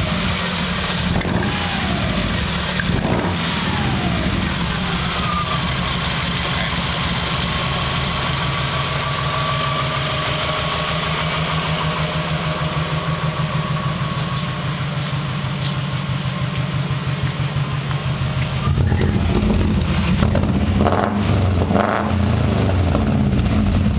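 Subaru EJ18 1.8-litre flat-four engine idling steadily through a catless exhaust with a glasspack resonator and a large muffler tip. It gets louder from about 19 seconds in, when the sound is taken at the exhaust tip.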